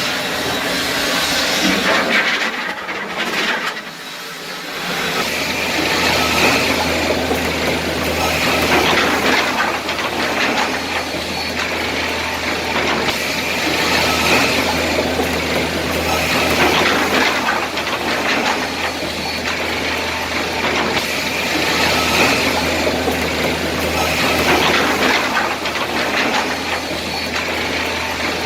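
Pallet-component machining line running: conveyors and saws clattering over a steady low hum. The sound drops briefly about four seconds in, then runs on with swells roughly every two seconds.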